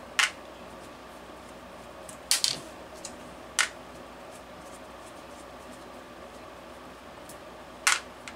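A handful of sharp, short metallic clicks and taps, spread out, as the metal Saito FA-130T twin-cylinder model engine is gripped, turned and worked on by hand during disassembly, over a faint steady background hum.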